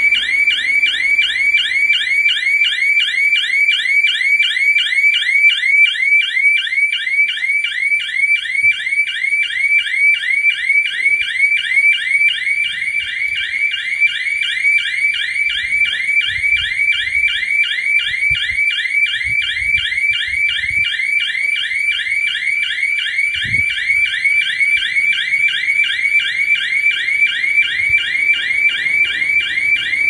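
Electronic bank security alarm siren sounding continuously, loud, as a fast, unbroken string of repeating pitch sweeps. Nobody has switched it off, and it keeps ringing.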